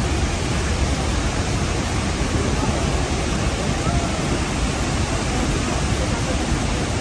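Horseshoe Falls heard from close below: a steady, unbroken rush of falling water, heaviest in the deep low end.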